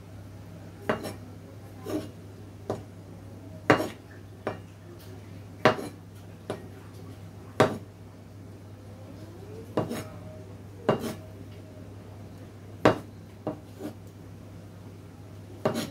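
Cleaver-style knife chopping canned mushrooms on a plastic cutting board: about fifteen sharp knocks of the blade on the board at uneven intervals, roughly one every second, over a steady low hum.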